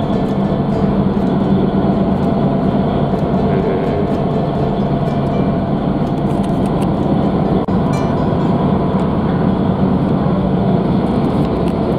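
Steady drone of a car ferry's engines while under way: a low, even hum with a rushing noise over it and a brief drop about two-thirds of the way through.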